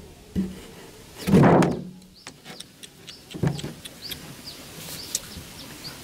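Plastic bottle and jar being handled and pushed down into a hole in sandy soil: a few scraping rubs, the loudest about a second in, with scattered clicks and knocks. Small birds chirp repeatedly in the background from about halfway.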